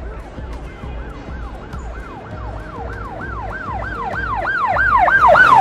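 Emergency vehicle siren on a fast yelp cycle, about two and a half rising-and-falling sweeps a second, growing steadily louder over the low hum of street traffic.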